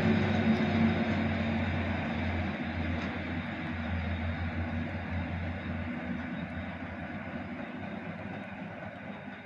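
Diesel engines of two Class 73/9 electro-diesel locomotives (MTU V8 engines) running with a steady low hum, fading steadily as the train moves away into the distance.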